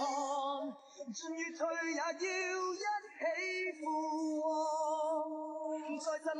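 Theme song: a voice singing with vibrato over music, holding one long note near the middle.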